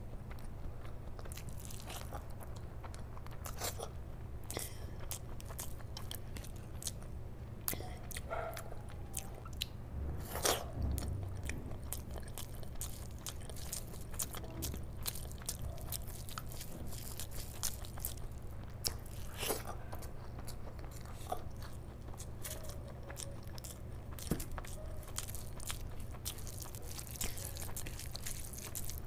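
Close-miked chewing and mouth sounds of someone eating curry-soaked rice by hand, with wet squishing as the hand kneads rice and gravy and scattered sharp clicks throughout. A steady low hum runs underneath.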